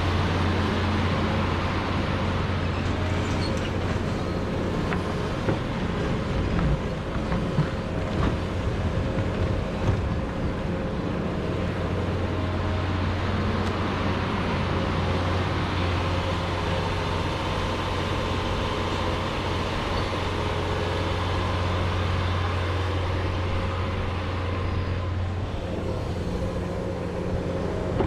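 John Deere 210G excavator's diesel engine running steadily at working speed, with scattered knocks and clanks about five to ten seconds in as the bucket breaks up frozen peat moss.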